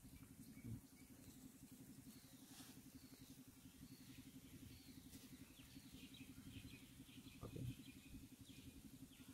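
Near silence: faint bird chirps over a low steady hum, with a brief low murmur about seven and a half seconds in.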